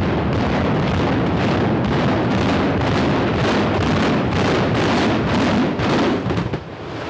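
Building implosion: a rapid string of demolition charges cracking over a heavy rumble as the structure comes down, dropping off suddenly near the end.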